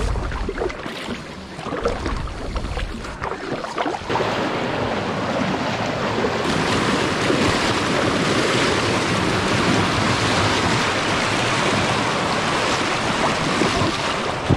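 Fast-flowing river water rushing: a steady, full hiss that comes in about four seconds in and grows louder a couple of seconds later. Before it there are low, uneven rumbles on the microphone.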